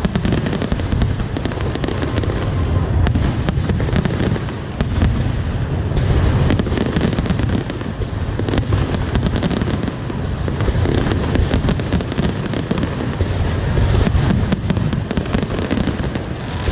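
A dense, unbroken fireworks barrage: deep booms rumbling together under a constant crackle of many small sharp bursts.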